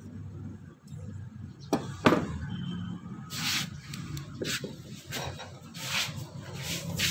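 Two sharp metal clinks of tools and parts about two seconds in, followed by about five short scraping or rubbing sounds roughly a second apart. This is hand work on a car air-conditioning compressor's clutch and pulley parts.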